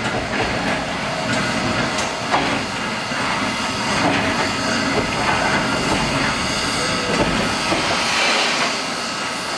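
Steam-hauled train of Western Maryland Scenic Railroad engine 734 in motion: a steady rumble and hiss of steam with scattered knocks and clanks from the cars.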